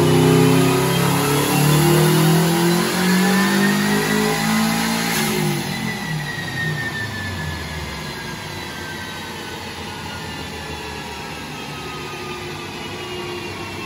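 2002 Subaru WRX's turbocharged flat-four on a chassis dyno, revving higher and higher in a pull, then lifting off about five seconds in. The engine note drops away and a whine falls slowly as the car coasts down on the rollers.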